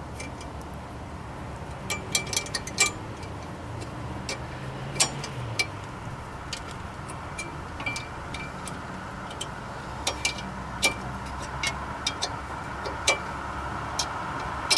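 A wrench clicking and clinking as it turns a nut on a pusher bolt threaded against a stuck brake rotor, forcing the rotor off the hub. The clicks are sharp and irregular, about one a second, over a low steady rumble.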